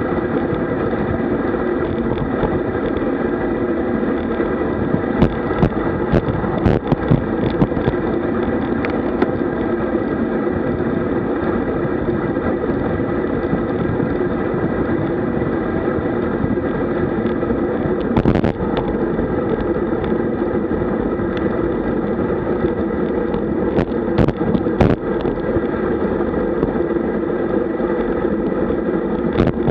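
Steady rush of wind over the camera microphone and road noise from a road bike riding at around 50 km/h, with scattered sharp knocks, a cluster about five to seven seconds in, one near eighteen seconds and more around twenty-four seconds.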